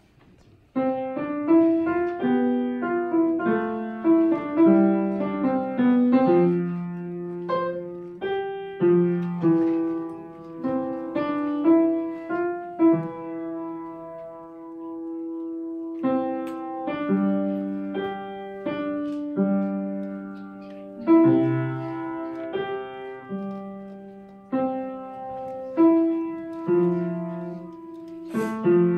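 Upright acoustic piano played as a four-hands duet: a slow tune in single struck notes over lower notes, starting about a second in, with a long held note partway through before the tune goes on.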